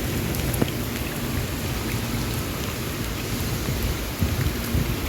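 Heavy rain pouring steadily, with a low rumble underneath and a few sharp ticks of drops striking close by.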